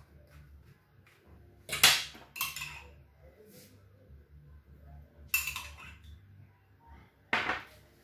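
Metal spoon clinking and scraping against a ceramic mug while liquid is scooped out of it: two short clinks close together about two seconds in, the first the loudest, another a few seconds later, and a last one near the end.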